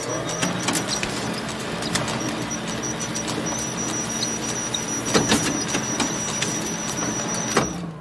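Photocopier running through a copy cycle: a steady motor hum and a thin high whine under repeated mechanical clicks, with the loudest clacks about five seconds in. The machine winds down near the end.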